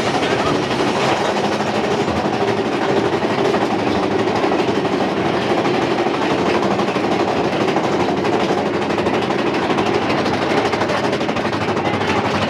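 Big Thunder Mountain mine-train roller coaster cars running along the track: a loud, steady rattle and rumble of the wheels on the rails.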